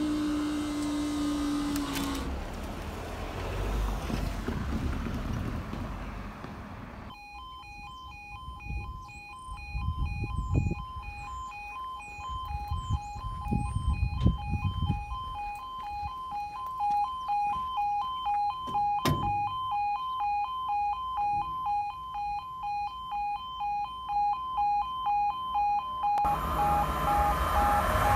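UK level crossing audible warning alarm: two electronic tones alternating, pulsing a little over once a second. Near the end the rising noise of an approaching train joins it.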